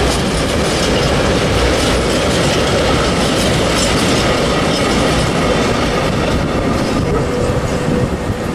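Freight train of rail tank wagons rolling past close by, wheels clicking over the rail joints. The tail passes near the end and the noise starts to fall away.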